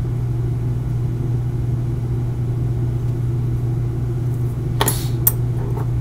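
Steady low hum, with two short sharp clicks near the end as a sculpting tool is put down on the work surface.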